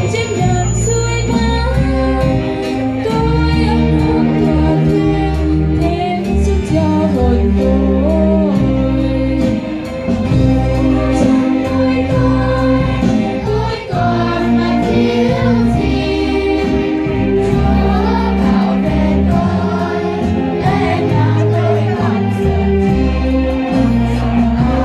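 Children's choir singing a Vietnamese church hymn in unison over instrumental accompaniment with a steady bass line.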